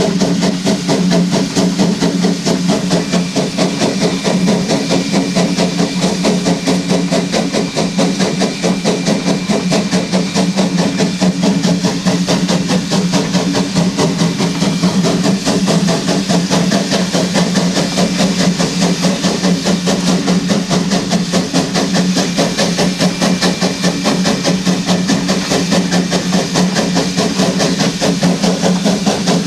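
Standing steam locomotive, Hammond Lumber Co 2-8-2T #17, giving off a steady, loud hiss of steam over a low hum, with a fast, even flutter throughout.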